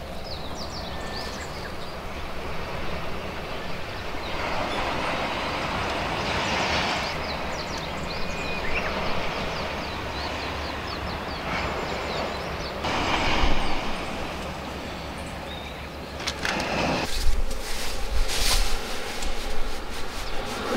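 Steady outdoor rushing noise, with low rumbling gusts of wind on the microphone and a few light knocks in the last few seconds.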